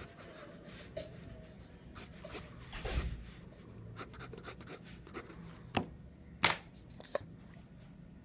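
Graphite pencil scratching on paper in short, irregular sketching strokes, with a couple of sharper, louder strokes about two-thirds of the way through.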